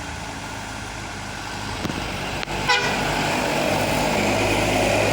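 A medium-sized tour bus approaching, its engine rumble growing louder through the second half, with a short horn toot about halfway through.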